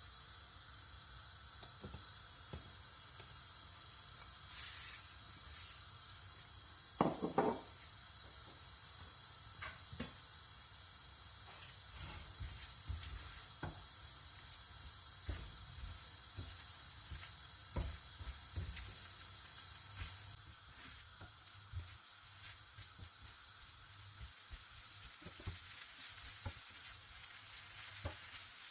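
Chopped green pepper and onion sizzling in oil in a frying pan over a raised gas flame, with scattered taps of a utensil stirring them. About seven seconds in, a brief louder scrape or clatter against the pan stands out.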